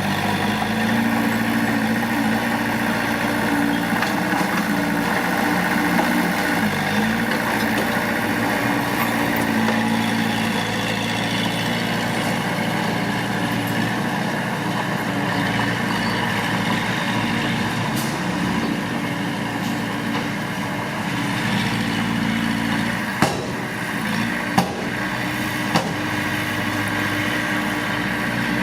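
Mitsubishi D20 bulldozer's diesel engine running steadily. Three sharp knocks come in the last few seconds.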